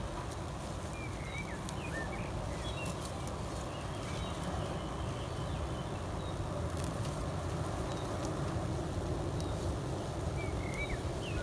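Outdoor garden ambience: a steady low rumble, with small birds chirping briefly a few times, about a second in, near three seconds and again near the end.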